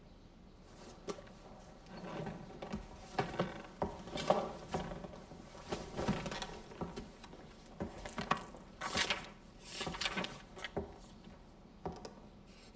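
A pen scratching on paper as an inscription is written in a book, in short irregular strokes with light knocks and handling sounds between them; the longest, sharpest scratches come about nine to ten seconds in.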